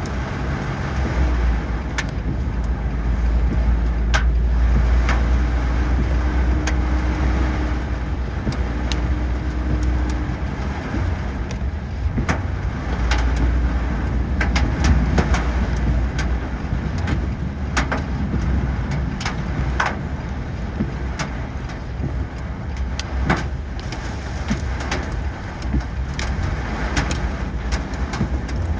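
Car driving in the rain: a steady low rumble of engine and road noise, with many scattered sharp ticks over it.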